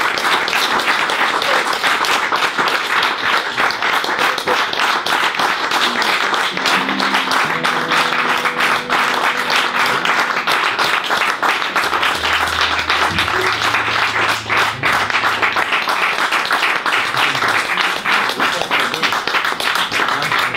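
Audience applauding steadily, a dense crackle of many hands clapping, with a few faint held low notes from the electric guitar underneath partway through.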